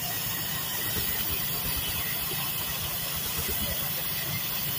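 Case steam traction engine standing and running, with a steady hiss of steam over a low rumble.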